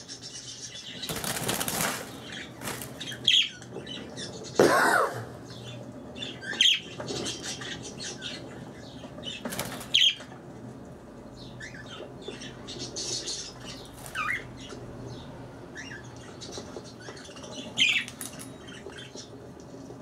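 Pet budgerigars in a wire cage: bursts of wing flapping and rustling, with short high chirps every three to four seconds.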